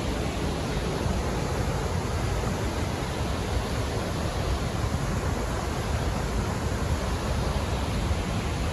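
Steady rushing noise of Athirappilly Falls, a large waterfall, with no breaks or separate events.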